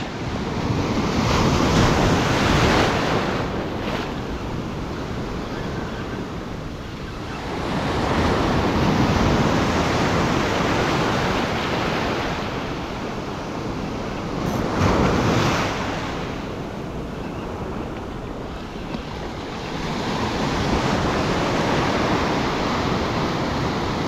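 Ocean surf breaking and washing up a sandy beach, a loud rushing that swells and fades with each wave, about every six seconds.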